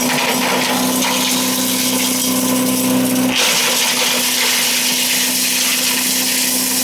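A wood chipper shredder's 7-horsepower 212 cc gasoline engine running at a steady hum. About halfway through, the hum cuts out abruptly and a loud, dense rushing hiss takes over.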